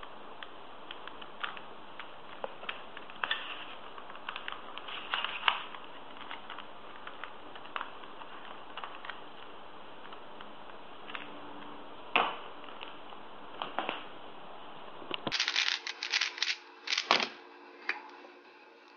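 Plastic 3x3 Rubik's cube layers being turned by hand, giving irregular clicks and clacks, with a quick flurry of louder turns near the end.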